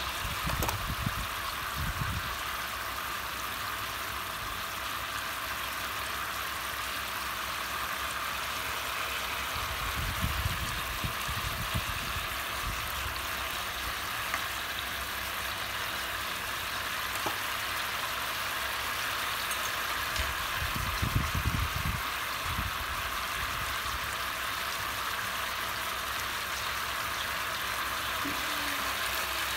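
Pork shoulder steaks frying in a pan of butter and olive oil, a steady sizzle as the juices they released boil off. Brief low rumbles come about a second in, about ten seconds in and about twenty-one seconds in.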